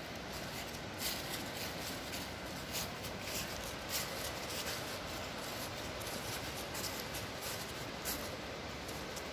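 Footsteps rustling and crackling through dry fallen leaves, irregular crunches over a steady hiss.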